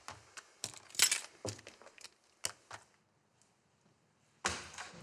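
Keys and small objects clicking and rattling as a hand snatches them off a tray, a handful of light clicks and clinks over about three seconds. Then a short quiet, and a louder bump near the end.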